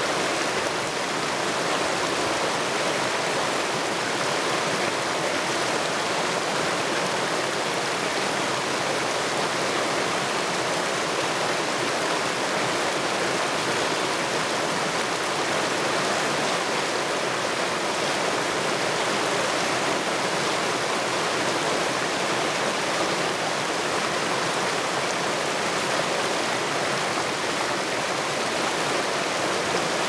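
Mountain creek water pouring over a boulder into a small chute, a steady rushing and splashing.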